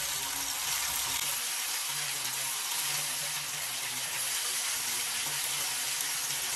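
Besan-battered fish pieces frying in hot oil, giving a steady sizzling hiss.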